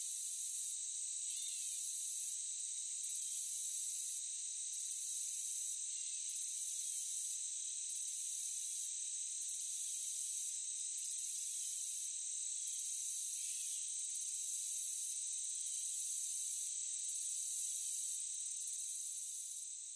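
Insects trilling in grassland: a steady high-pitched trill, with a higher buzz that comes and goes roughly every second or two.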